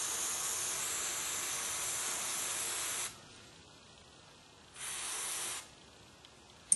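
Aerosol carburetor cleaner sprayed through its red straw onto a small-engine carburetor part: a steady hiss that stops about three seconds in, then a second short burst about five seconds in. A sharp click near the end.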